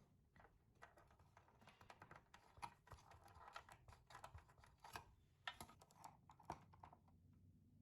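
Faint, irregular light clicks and taps of small hard parts and tools being handled, several a second, over a low hum.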